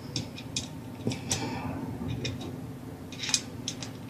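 Light, scattered metal clicks and ticks as a small square block is fitted onto the lever inside an aluminium hydraulic pump case, over a steady low hum.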